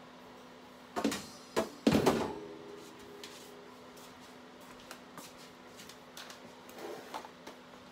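Wire oven rack clattering as it is set down and leaned against the stove: a few sharp metallic knocks about one and two seconds in, the last ringing briefly, then a few faint light ticks.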